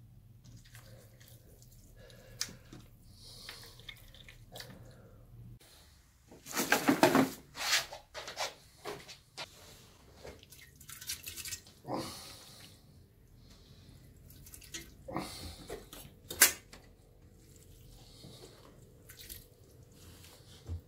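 Hands shredding boiled sheep head meat on a steel tray and dropping it into a pot of broth: soft wet squelches and splashes. The loudest stretch comes about seven seconds in, with a few sharp metal clicks later on.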